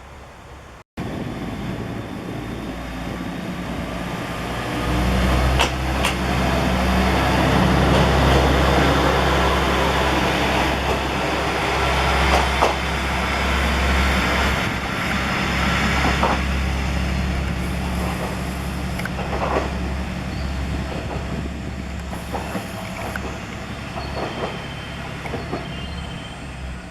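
A train running past close by: a steady low hum under a broad rumble that swells about five seconds in, stays loud for several seconds, then slowly eases, with sharp clicks now and then.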